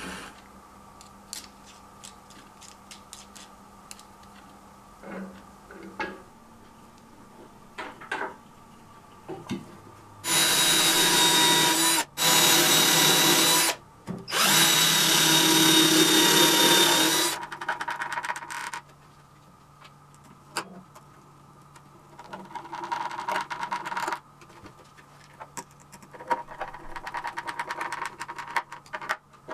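Cordless drill running in three short bursts, boring screw holes through a carpet-covered subwoofer box around a speaker terminal cup. Small clicks and taps of parts being handled come before it, and fainter ticking and scraping of a screwdriver driving the cup's screws comes after it.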